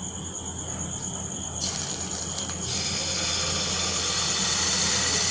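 Pancake batter being poured from a ladle into a hot, lightly oiled non-stick pan. A sizzling hiss sets in about one and a half seconds in and grows louder as the batter spreads, over a steady low background hum.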